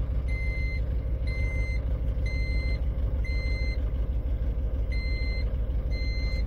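Truck engine idling in the cab, with a dashboard warning beeper sounding short high beeps about once a second, pausing briefly midway. The alarm goes with a flashing red warning light while the engine builds air pressure: the low-air-pressure warning of an air-brake system.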